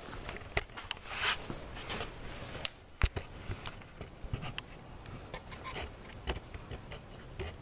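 Handling noise as the camera is carried and set down on concrete: rubbing and scraping swishes, a sharp knock about three seconds in, then scattered light clicks. No chainsaw is running yet.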